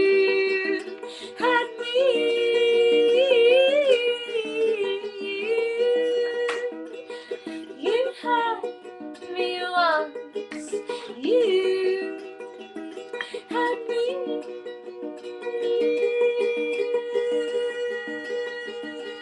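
A woman's wordless singing, holding long notes that waver and slide down in pitch, over a strummed ukulele.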